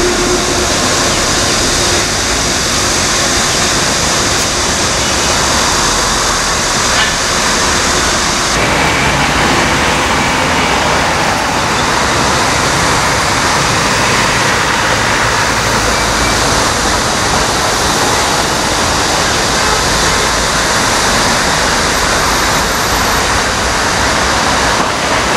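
Dense multi-lane city road traffic: a steady wash of tyre and engine noise from many cars, buses and trucks passing below.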